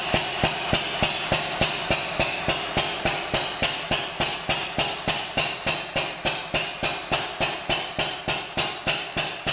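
Hit-and-miss stationary engine running, a steady beat of sharp strokes about three to four a second that slows slightly.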